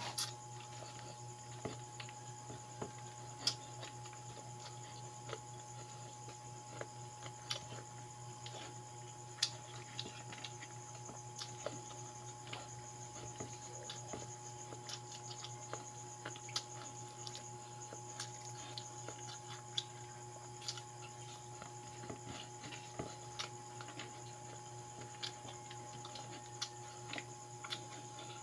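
Close-up mouth sounds of someone eating pansit noodles and fried daing (dried fish): irregular soft clicks and smacks of chewing, a few louder ones, over a steady low hum.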